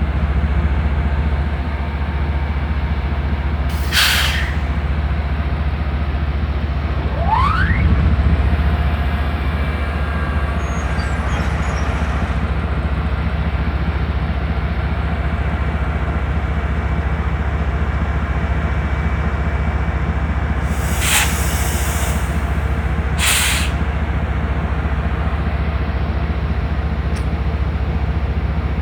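TE33A diesel locomotive's GEVO-12 engine running with a steady deep rumble, broken by short sharp hisses of air venting: one about four seconds in and two more about two seconds apart later on, the locomotive's 'sneezing'. A brief rising whine comes around seven seconds in.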